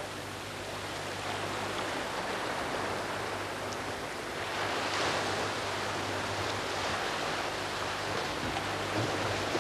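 Sea surf washing steadily, swelling a little louder about halfway through.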